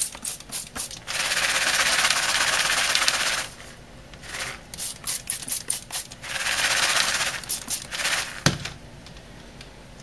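Spray bottle misting flavored oil onto popcorn in a bowl: two long hissing sprays, with quick clicks and rustles between them. Near the end there is a single sharp knock.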